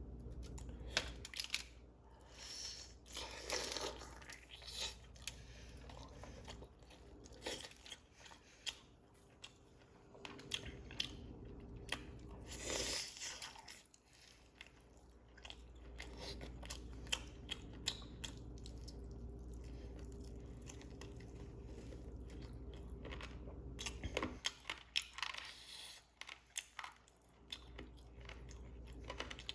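Close-up eating sounds: crunchy biting and chewing of fried chicken wings, with many sharp crisp crunches in short clusters over a steady low hum.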